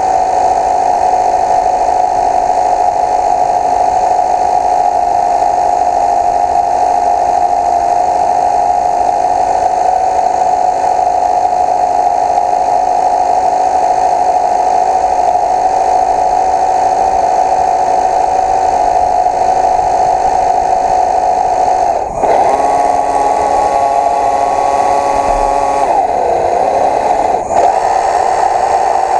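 A small electric motor whining steadily at a constant pitch. About three-quarters of the way through, the whine breaks off for a moment and resumes at a shifted pitch; it wavers, and after a second short break near the end it settles again.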